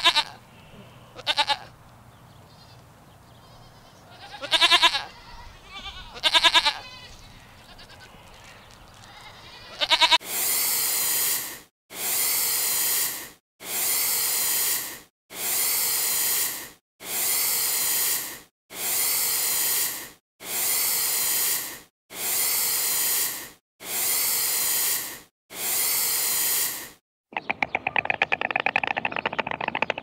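A goat bleating about five times, then an iguana hissing in ten evenly spaced bursts, about one every 1.7 seconds. Near the end a fast rattling begins.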